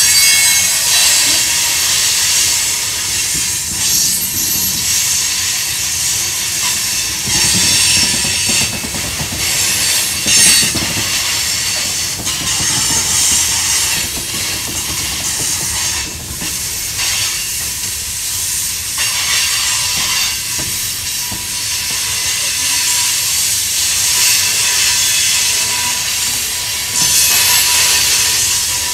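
Freight cars (tank cars and covered hoppers) rolling past on curved track: steady wheel-on-rail rumble and clatter with a strong hissing top. It swells louder a few times, around a third of the way in and near the end.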